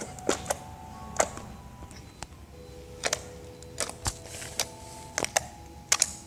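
Thick, freezer-firmed slime being pressed and squeezed in the hands, giving a rapid, irregular run of sharp, loud clicks and pops.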